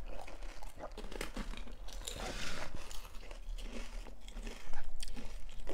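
Close-up eating sounds of panipuri: crisp puri shells crunching and being chewed, with many small cracks and clicks that get louder about five seconds in.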